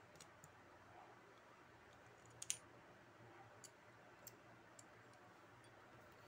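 Faint, scattered metal clicks as an Allen key is fitted into and turns a small screw on a chain tensioner, over near-silent room tone. The sharpest click comes about two and a half seconds in.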